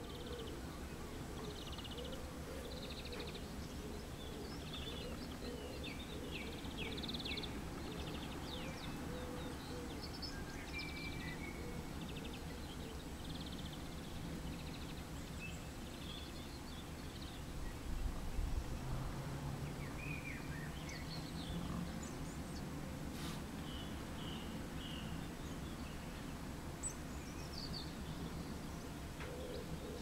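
Small wild birds chirping and twittering in short, high phrases scattered throughout, over a steady low background rumble, with a brief low thump a little past halfway.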